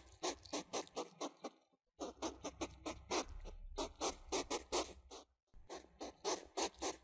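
Hedgehog snuffling: short sniffing puffs in quick runs, about six or seven a second, broken by a pause about a second in and a shorter one after about five seconds.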